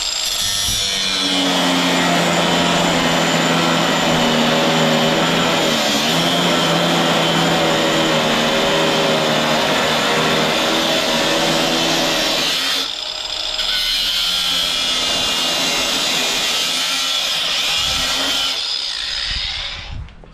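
Ryobi cordless angle grinder with a cutoff wheel cutting the corner off a piece of steel angle iron: the motor runs steadily with the wheel biting into the metal. It eases off briefly about two-thirds of the way through, then cuts again and winds down near the end.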